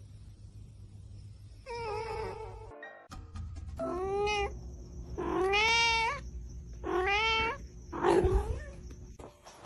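A cat meowing: five drawn-out cries in a row, each rising in pitch and then holding, the last one harsher.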